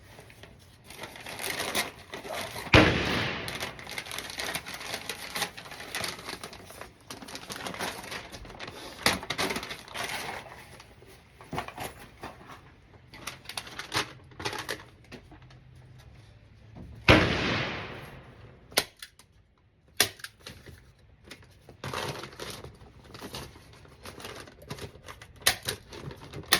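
Two loud gunshots about fourteen seconds apart, each followed by a short echo, among fainter scattered clicks and knocks.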